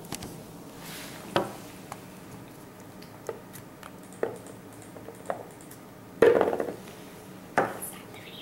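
Small plastic toys being handled and set down on a tabletop: scattered light clicks and knocks, with a short rattling clatter about six seconds in and another knock a second later.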